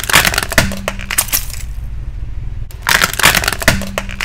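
Car tyre rolling over and crushing plastic toy pigeon figures: two bursts of cracking and crunching, the second starting about three seconds in, over a steady low rumble from the car.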